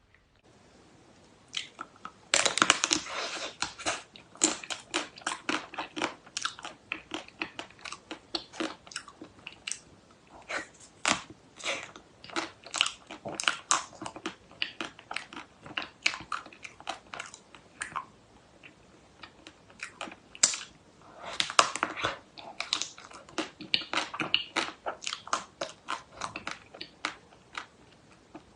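Close-miked chewing and crunching of food, a steady run of crisp crunches a few times a second, with denser bursts of crunching near the start and about three quarters of the way through.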